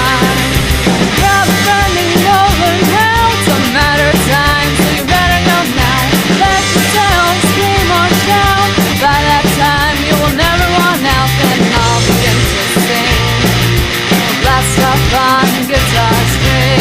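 A rock band playing its song loudly, with a wavering melody line over a steady bass and drums.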